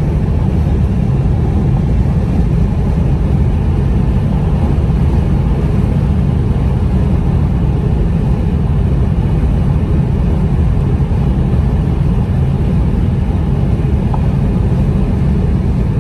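Steady road noise of a car driving at speed, heard from inside the cabin: a constant low rumble of engine and tyres with no breaks.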